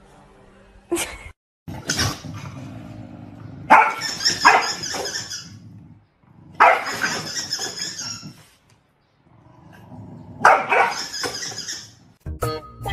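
A dog barking and growling in four bouts of about two seconds each, each starting sharply.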